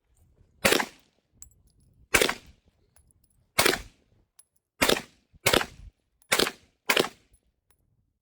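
Seven gunshots fired one at a time at uneven intervals, roughly one to one and a half seconds apart, with the fourth and fifth and the sixth and seventh coming closer together.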